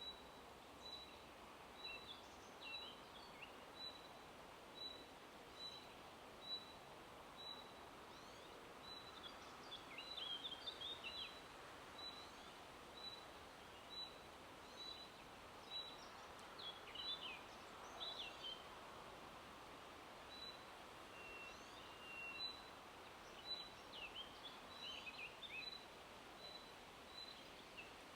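Faint woodland ambience. A bird repeats a single short high note about once a second, and other birds add brief chirping phrases now and then over a soft hiss of wind in the leaves.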